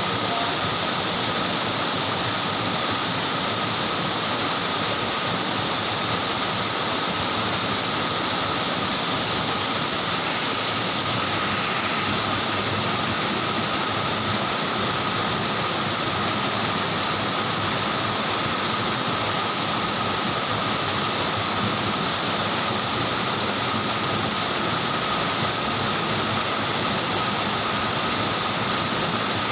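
Waterfall rushing: a steady, unbroken roar of falling water, with a faint steady high tone running under it.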